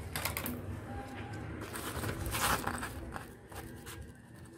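Paper rustling and crackling as a sheet is slid across the workbench, with light handling noise. The loudest rustle comes about two seconds in, and the sound dies away near the end.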